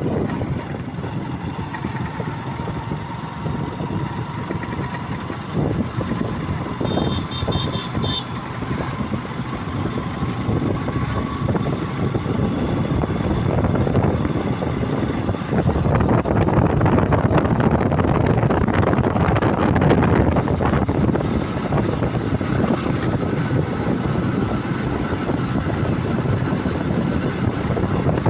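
A road vehicle running steadily, with engine and road noise and a faint engine tone that rises slowly. A short burst of beeps comes about seven seconds in, and the noise grows louder from about halfway through.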